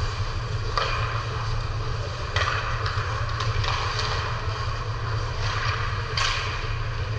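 Hockey play on a rink: skates scraping and three sharp knocks of stick and puck, the loudest about two and a half seconds in, over a steady low hum.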